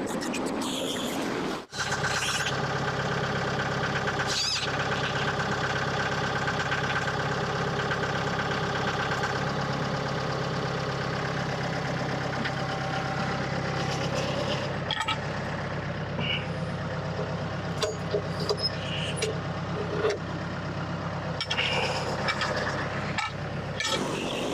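An engine running at a steady speed, starting after an abrupt break about two seconds in. After the midpoint its sound thins out, with scattered knocks and clicks.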